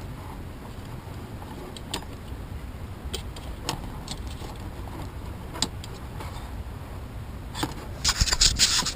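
Scattered small clicks as the removed door lock actuator assembly and its small screws are handled, with a burst of rattling and clicking near the end.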